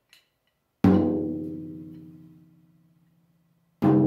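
13-inch tom struck twice with a drumstick, about three seconds apart, each hit ringing out with a low pitched tone that slowly fades. The head is still tensioned very low, well under its target pitch of A2.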